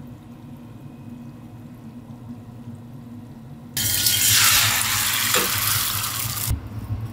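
Quiet low hum with faint deep-frying, then about four seconds in a loud hissing sizzle as katsudon broth hits a hot small frying pan with egg over a gas flame. The sizzle stops abruptly about two and a half seconds later.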